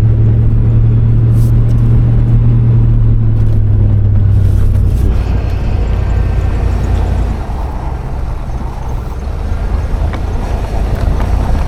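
A vehicle driving through deep snow. Its engine runs with a steady low hum for the first five seconds or so, then gives way to a rougher, noisier rumble.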